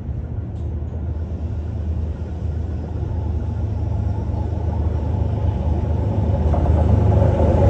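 D19E diesel-electric locomotive approaching, its engine a low rumble that grows steadily louder as it nears.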